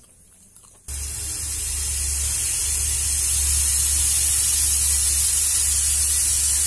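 Pressure cooker on a gas stove hissing steadily as steam escapes at its weight valve while rice cooks inside. The hiss starts suddenly about a second in, grows louder over the next couple of seconds, then holds, with a low rumble underneath.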